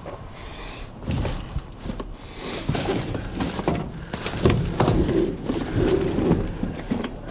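Junk being rummaged through and shifted in a dumpster: irregular knocks, clatter and rustling, busiest in the middle.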